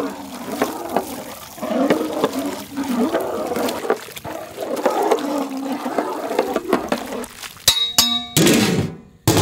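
Wooden paddle stirring a large metal pot of thick, simmering curry gravy, the liquid churning and sloshing. About eight seconds in comes a brief metallic ringing clang.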